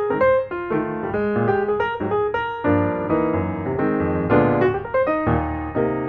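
Piano music: a melody of quick notes over lower chords.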